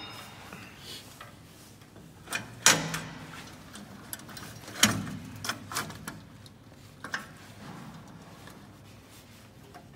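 Scattered sharp knocks and clunks as the metal guide plates and clamp lever of a CNC wood lathe's auto-feed hopper are adjusted by hand against the stacked wooden blanks. The two loudest knocks come about three and five seconds in, with a few lighter taps after.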